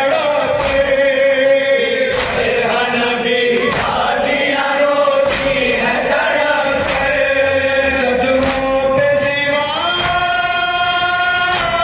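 A noha, a Shia lament, sung by a male lead reciter on a microphone with a group of men joining in held notes; the voices step up to a higher note near the end. Sharp slaps of chest-beating matam sound about every second and a half, in time with the chant.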